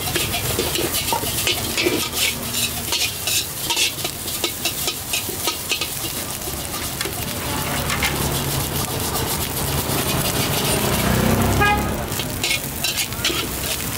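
Metal spatula scraping and clattering against a steel wok as fried rice is stir-fried, over a steady sizzle. The scrapes come thick and fast for the first half, then ease off, and a low rumble swells near the end.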